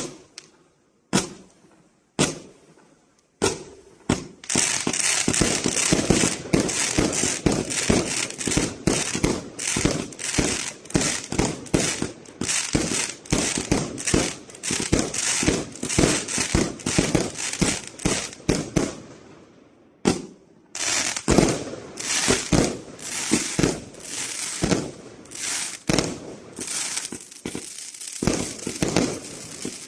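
A 399-shot fireworks cake firing. A few single shots come about a second apart, then from about four seconds in there is a rapid, dense volley of launches and bursts with crackling. It thins out just before twenty seconds and, after a short pause, picks up again as fast as before.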